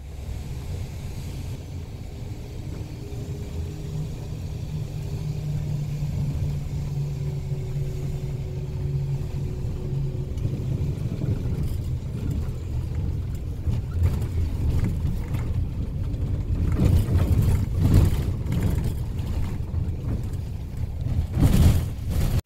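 Moving vehicle heard from inside the cabin: a steady low engine and road rumble that grows slowly louder, with a low hum in the first half and a few bumps near the end.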